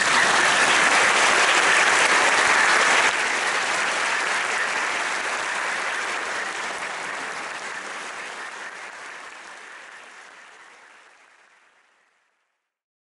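Audience applauding steadily, then fading slowly away to silence.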